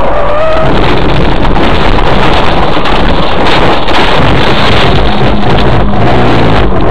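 A car crashing, recorded by its own dashcam: a loud, overloaded, continuous noise of the crash as the windshield is cracked.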